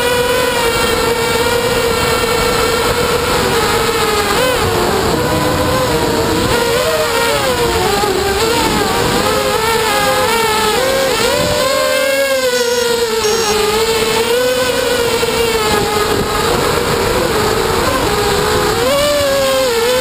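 QAV250 racing quadcopter's brushless motors and propellers whining, heard from a camera mounted on the quad, the pitch swinging up and down as the throttle changes. Wind noise rumbles under the whine.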